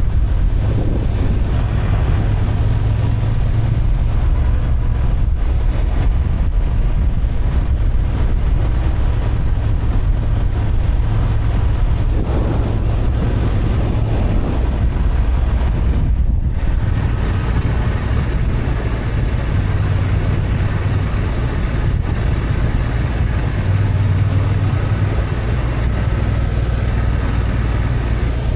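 Honda XL750 Transalp's 755 cc parallel-twin engine running steadily under way, with wind noise on the microphone. Just past halfway the hiss drops briefly before the engine carries on.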